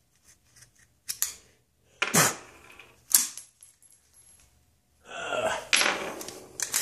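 Metallic clicks and knocks from handling a gas-blowback airsoft M4 while clearing a broken BB jammed in its bolt carrier, with two sharper knocks about two and three seconds in. A longer scraping rustle follows near the end.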